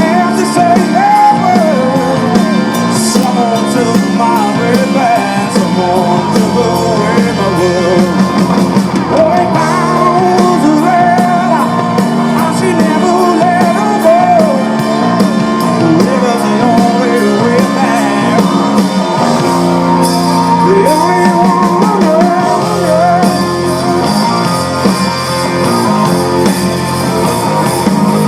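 Live blues-rock band playing at full volume: a lead line that bends and wavers in pitch over steady bass, keyboards and drums.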